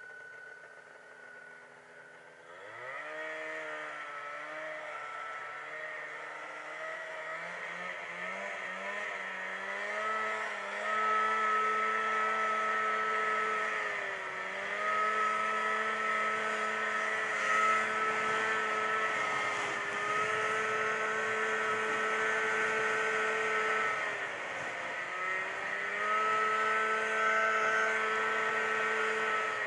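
Snowmobile engine idling, then revving up sharply about two and a half seconds in as the sled pulls away. It then runs at a steady high speed, the pitch dipping briefly three times as the throttle eases and picks up again, with wind and track noise underneath.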